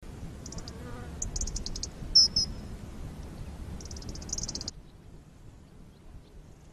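Outdoor ambience of small birds chirping in short, rapid high trills over a low rumble, with one louder chirp about two seconds in; it all cuts off suddenly near the end, leaving faint room noise.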